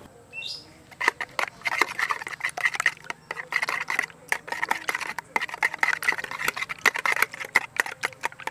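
Stainless-steel balloon whisk beating raw eggs in a plastic bowl, its wires clicking rapidly against the bowl's side. The whisking starts about a second in.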